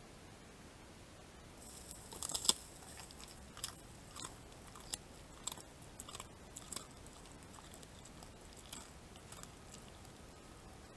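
Striped hyena biting and chewing food: a quick run of faint, sharp crunches, the loudest about two and a half seconds in, then single crunches every half second to a second that thin out over the following seconds.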